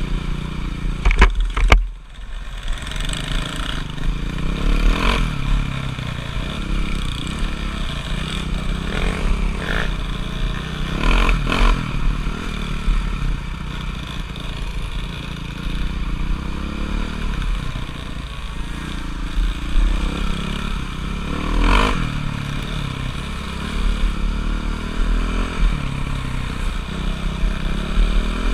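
Motocross motorcycle engine running steadily, with a few sharp knocks and clatter heard over it.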